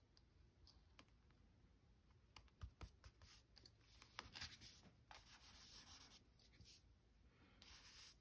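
Faint scratching of a pen on journal paper, with scattered light taps and clicks of hands and a plastic ruler on the page, mostly in the middle few seconds.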